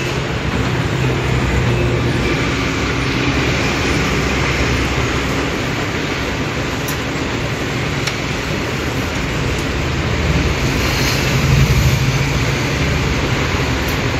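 Kyocera TASKalfa 1800 copier running steadily, printing and feeding sheets out into its exit tray.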